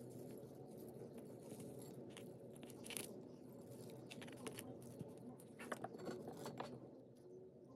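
Faint close-up handling sounds: fingertips rubbing and tapping a plastic toy ball covered in loose confetti sequins, small scratches and clicks over a steady background hiss. A few sharper clicks come about three seconds in and again around six seconds in.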